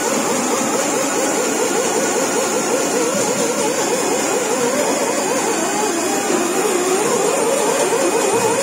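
Steady, loud machine drone with a wavering, warbling tone running through it.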